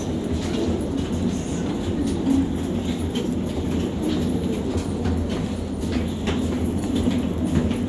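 Steady low mechanical rumble and hum inside an airport jet bridge, with footsteps of passengers walking along its floor ticking about twice a second.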